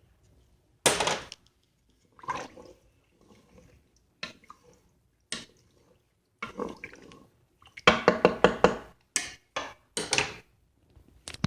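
A spoon clinking and scraping against the metal inner pot of a pressure cooker as soup is stirred, with liquid sloshing. There are separate knocks, then a quick run of clinks about eight seconds in.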